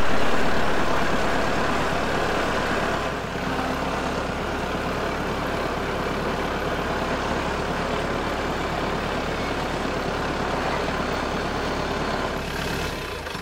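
Compact tractor's engine running steadily as the tractor is driven, loudest in the first couple of seconds and then holding an even drone.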